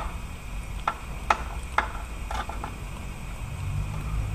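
A ratchet on a socket extension clicking in a handful of separate sharp ticks as the long starter mounting bolt is run up into the engine block. A steady low hum comes in near the end.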